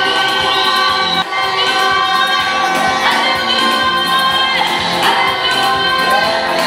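Church congregation singing a gospel worship song with loud amplified music, a woman leading the song through a microphone and PA speakers.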